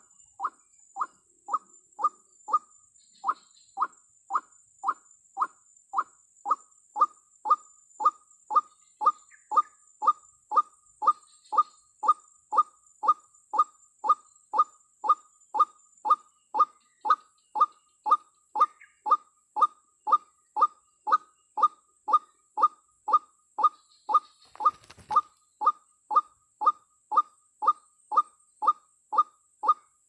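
White-breasted waterhen call played as a trapping lure: a short note repeated evenly about twice a second, without let-up, the female's call meant to draw in a male. One brief rustle comes near the end.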